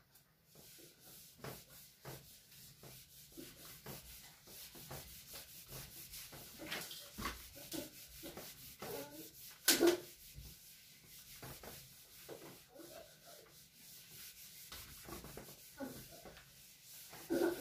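Whiteboard eraser rubbing across a whiteboard in quick back-and-forth strokes as marker writing is wiped off, with one louder stroke about ten seconds in.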